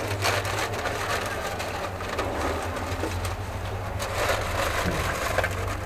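Street noise: a steady low engine hum with scattered clatter and hiss over it.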